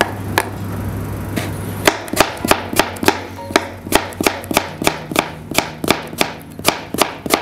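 A large kitchen knife slicing a green apple thinly on a cutting board: a few knocks of the blade on the board at first, then from about two seconds in a fast, even run of knocks, about four a second. Background music plays underneath.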